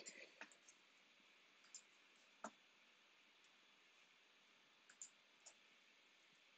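A few faint, scattered clicks of a computer mouse and keyboard over near silence, the loudest about two and a half seconds in.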